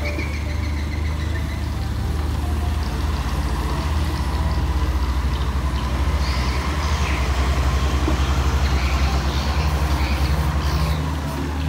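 Komatsu PC210 excavator's diesel engine running steadily under load while it digs and swings a bucket of dirt, a deep pulsing drone that grows louder midway and eases off near the end.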